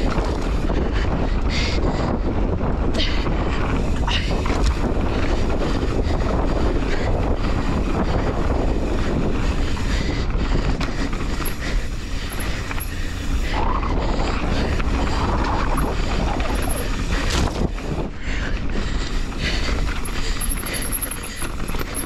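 Wind buffeting the camera microphone over the rumble of mountain bike tyres rolling on a dirt trail, with occasional knocks and rattles from the bike.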